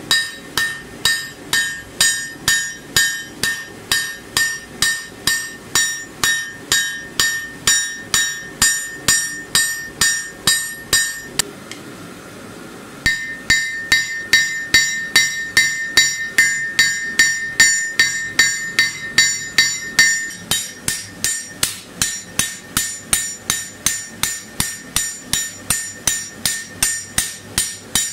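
Hand hammer striking red-hot steel on an anvil in a steady rhythm of about two to three blows a second, each blow ringing. The hammering stops for about a second and a half a little before halfway, then resumes.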